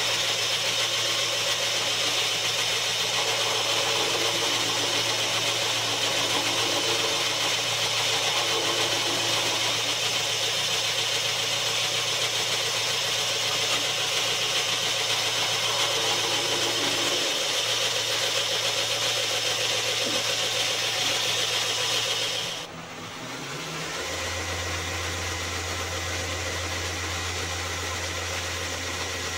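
Belt grinder running with a steel knife blade held to the 240-grit belt on the flat platen: a steady, loud hiss of abrasive on steel over the motor's hum. It cuts off abruptly about 22 seconds in, and a second belt grinder's motor, fitted with a contact wheel, then runs with a steady lower hum.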